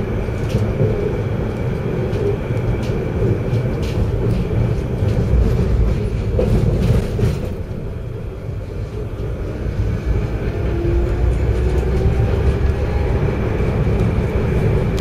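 Tram rolling along street track, heard from on board: a steady rumble and rail noise with scattered clicks and knocks from the wheels, easing briefly about eight seconds in, then a faint rising whine as it picks up speed again.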